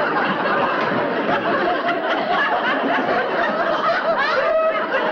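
Studio audience laughing, a dense crowd of voices that keeps going at a steady level.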